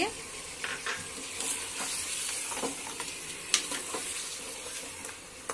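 Beef pieces sizzling as they fry in oil in a pressure cooker, stirred with a steel ladle that scrapes and knocks against the pot now and then, one sharper knock about three and a half seconds in.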